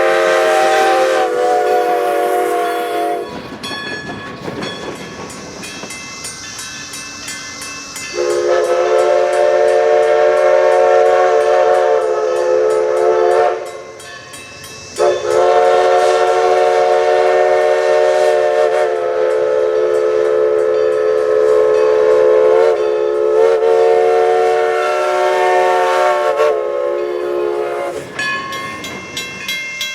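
Steam locomotive's five-chime whistle, an MD Whistles replica of a Nathan 5-chime, sounding a steady multi-note chord in long blasts. The longest blast runs about ten seconds.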